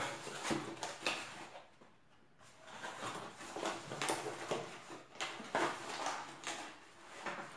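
Cardboard boxes and paper being handled on a table: rustling, with scrapes and light knocks, quieter for a moment about two seconds in.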